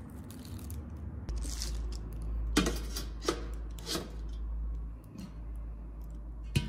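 Stainless-steel steamer tier being handled and set onto its steamer pot: a few light metal clinks and knocks, over a low steady hum.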